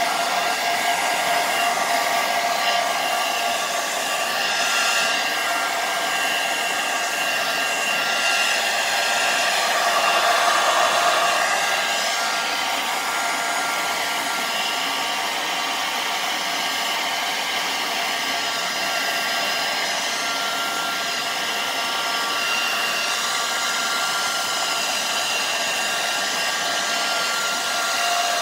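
Handheld hair dryer running steadily, a rush of air over a motor hum, blowing on a wet puppy's coat; its tone wavers briefly a few times as it is moved.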